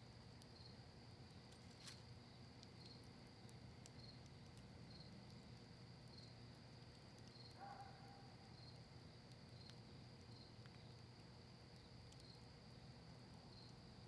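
Faint campfire of cedar leaves and maple wood crackling, with scattered small pops and one sharper pop about two seconds in, over a steady high cricket trill.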